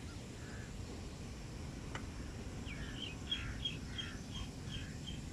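A bird calling outdoors: a series of short high chirps, about three a second, begins about halfway through over a steady low background rumble.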